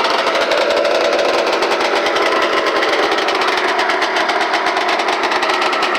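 Ski-Doo Blizzard 9700 snowmobile's two-stroke twin-cylinder engine, on twin pipes, running steadily with a rapid even beat as it warms up after a cold start. It is pretty loud.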